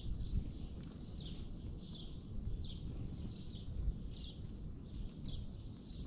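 Small wild songbirds giving short, sharp chip calls, about one or two a second, with a couple of thin high notes in between, over a steady low rumble.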